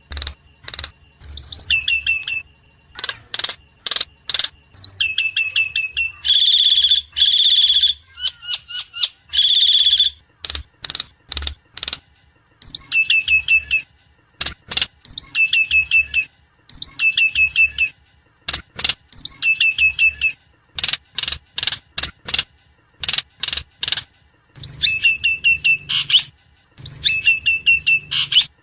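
Javan myna (jalak kebo) calling: repeated short phrases of notes falling in pitch, sharp clicks, and a few longer harsh rasping calls near the middle, with short pauses between.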